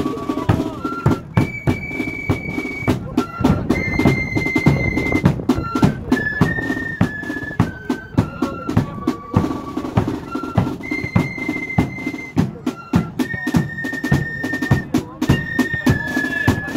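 Marching flute band playing: flutes carry a melody of long held notes over a steady beat of snare and bass drums.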